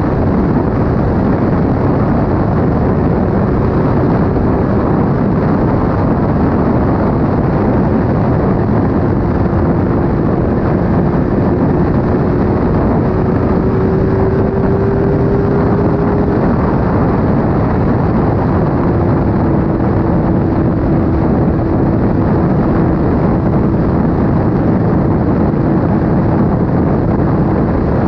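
Heavy wind rush on an action-camera microphone at motorway speed, over the steady drone of a Suzuki GSX-R 750 K9's inline-four engine cruising in a high gear. The engine note creeps up slightly, then drops a little past halfway.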